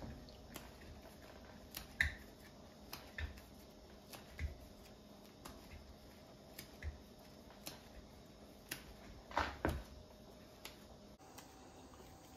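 Flour dumplings being shaped by hand: light, irregular taps and pats of dough against the palms and the work surface, roughly one a second.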